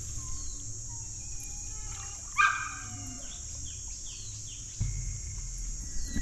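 Rural outdoor ambience: birds giving short, falling chirps over a steady high insect drone. There is one louder animal call about two and a half seconds in, and a low rumble starts near the end.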